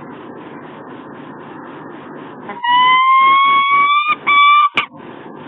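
Peregrine falcon giving one long, loud drawn-out call about halfway in, a single pitched tone rising slightly and broken briefly near its end, finished by a short sharp click, over a steady background hiss.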